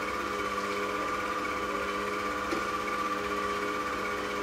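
Electric stand mixer running at a steady speed, a constant motor hum, as it mixes a batch of cookie dough.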